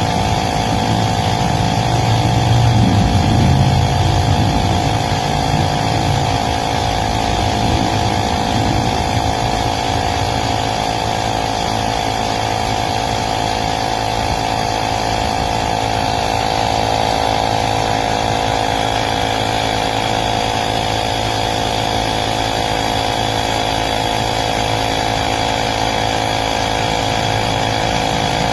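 Small battery-powered tire inflator's piston compressor running steadily with a constant buzzing drone, with some extra low rumble in the first few seconds.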